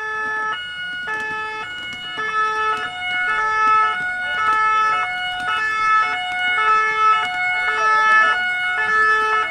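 Two-tone French emergency sirens alternating high and low about every half second. More than one seems to sound at once, out of step, so several pitches overlap. The sound starts abruptly.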